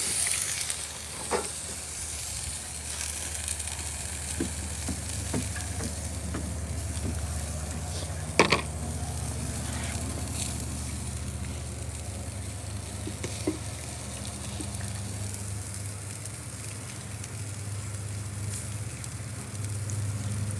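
Food frying in butter in a pan, a steady sizzle that is louder for a moment at the start. A few sharp knocks of a utensil against the pan come through, the loudest about eight seconds in. A steady low hum runs underneath.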